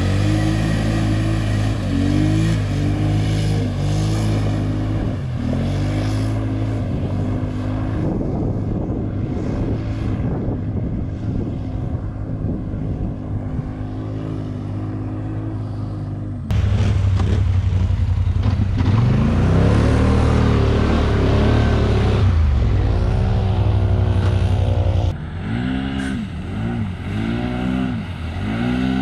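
Polaris Sportsman Highlifter ATV engine running under load while riding, revs rising and falling over and over. The sound changes abruptly about sixteen seconds in, becoming louder, and again near twenty-five seconds, dropping back.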